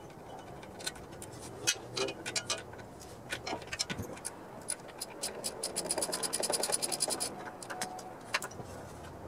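Hand tools clicking and scraping on a Briggs & Stratton power washer engine as its carburetor is being refitted: scattered sharp metal clicks, with a fast run of clicks lasting about a second and a half, about six seconds in.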